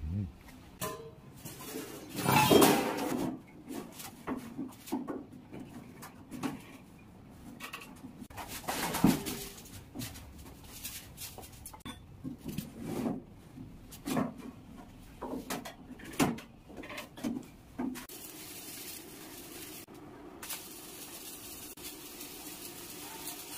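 Scattered metal clanks and knocks on steel sheet, loudest about two seconds in and again near the middle. About three quarters of the way through, the steady hiss of stick arc welding on the steel hull sheets starts and runs on.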